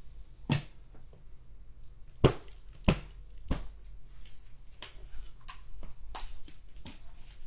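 Clear plastic dust bin of a Bissell upright vacuum being handled after emptying: a series of sharp plastic clicks and knocks, about eight in all, the loudest a few seconds in. The vacuum motor is off.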